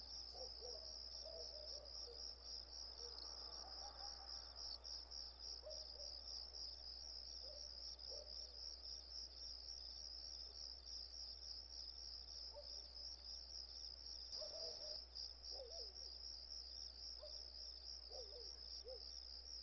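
Faint crickets chirping in a steady, fast-pulsing trill, with a few faint short calls lower down and a low steady hum underneath.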